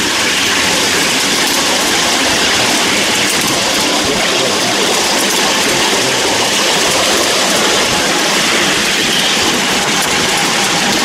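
Miniature railway train running along the track behind a miniature class 73 electric locomotive: a steady rumble of the wheels on the rails.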